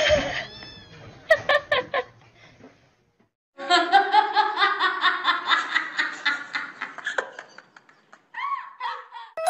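A person laughing in a fast run of short, repeated giggles for about four seconds, starting a few seconds in after a brief gap.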